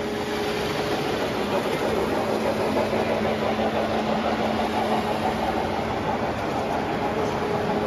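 O scale model freight train rolling past close by: a steady rumble of its wheels on the track, with a low steady hum underneath.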